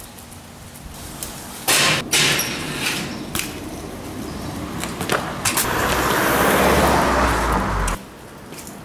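BMX bike riding on the pavement and onto a metal flat bar: two sharp knocks, some clatter, then a long loud scraping rush with a low rumble that cuts off suddenly near the end.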